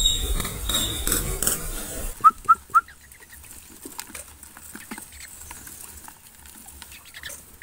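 Bird calls: high thin chirps over a rustling hiss, then three short, loud whistled notes in quick succession about two seconds in, followed by faint scattered clicks.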